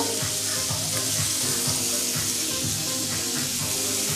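Lamb chops sizzling steadily in a pan, with music playing underneath.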